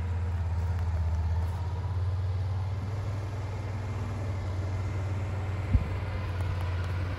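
Steady low engine rumble of a side-by-side utility vehicle driving off, with one short knock about six seconds in.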